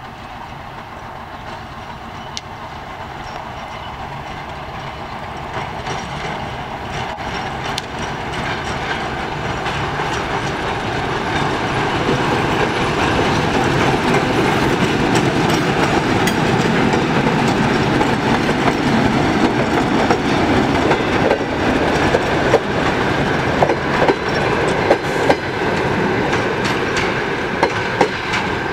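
ChME3 diesel shunting locomotive running under power with its ČKD six-cylinder diesel engine, growing steadily louder as it approaches and passes about halfway through. The passenger coaches behind it follow with a rapid clickety-clack of wheels over the rail joints.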